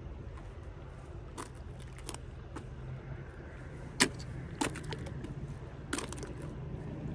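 Sharp clicks and knocks from a spinning reel and rod being handled, the loudest about four seconds in, over a steady low motor drone.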